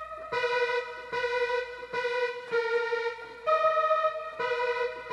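Synth lead patch from the Nexus software synth, played on a keyboard: a repeating riff of held notes, a new note about every second, over a steady lower sustained note.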